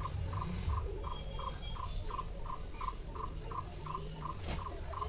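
An animal call repeated evenly, about three short notes a second, over a low steady rumble, with a single sharp click about four and a half seconds in.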